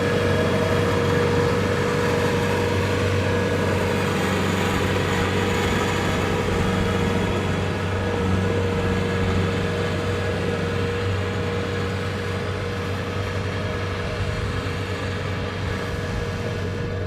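Kubota DC-70 Plus combine harvester running steadily: a constant engine drone with a steady whine above it, easing off slightly towards the end.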